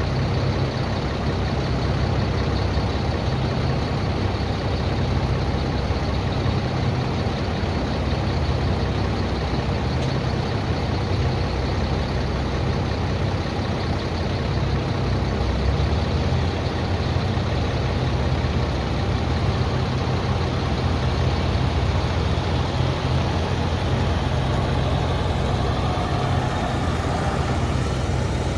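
McCormick Farmall Cub tractor's small four-cylinder flathead engine running steadily at a constant low speed, with an even, unchanging hum.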